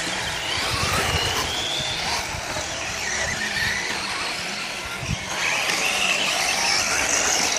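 Radio-controlled model cars racing: high motor whine rising and falling in pitch as they speed up and slow down through the corners.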